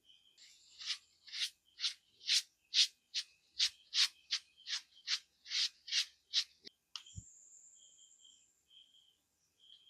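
Quick rhythmic rubbing strokes, about two a second and some fourteen in all, that stop suddenly, followed by a single soft thump.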